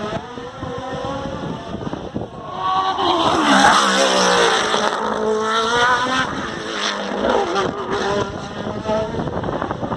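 Hillclimb race car going past under hard acceleration. The engine note climbs and breaks off repeatedly at gear changes and is loudest about three to four seconds in.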